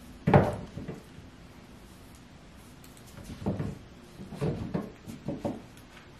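High-heeled shoes being set down and moved about on a closet shelf. One sharp knock comes about half a second in, then a run of lighter clunks and knocks in the second half.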